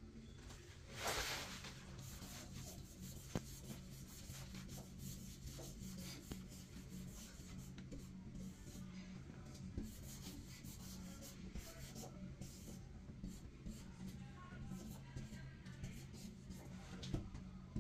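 Faint scratching and rubbing of a marker's felt tip dragged across a smooth door panel as a tag is written, in short irregular strokes. A brief louder hiss comes about a second in, over a steady low hum.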